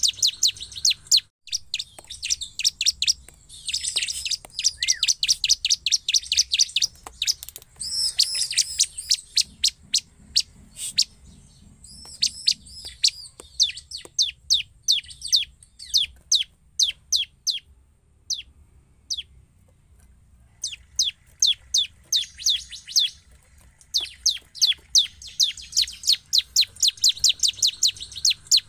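Bar-winged prinia (ciblek) calling in full voice: rapid runs of sharp, high chips, several a second, thinning to a few scattered chips about two-thirds of the way through before the fast runs resume.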